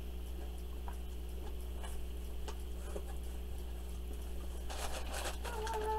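Cardboard snack box being opened and unpacked by hand: a few light scattered clicks and taps, then a brief rustle of packing paper about five seconds in, over a steady low hum.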